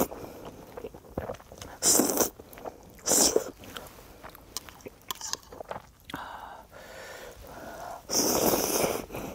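A person slurping ramyeon noodles in spicy tteokbokki sauce and chewing. Two short slurps come about two and three seconds in, quieter chewing follows, and a longer slurp of noodles comes near the end.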